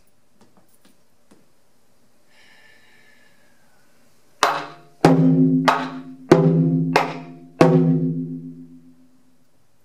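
Slant-mounted taiko barrel drum struck with wooden bachi: six strikes at a slow, even pace of about one every two-thirds of a second, starting a little under halfway in. Each leaves a deep, ringing drum tone, and several carry a sharp crack on top.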